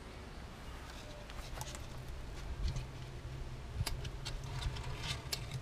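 Dry wood shavings being handled and lit inside a metal charcoal kiln: scattered small clicks and rustles over a low steady rumble, with one sharper click about four seconds in.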